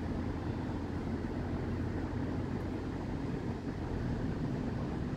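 Steady low rumble of wind buffeting the microphone, flickering rapidly in level, with no distinct events.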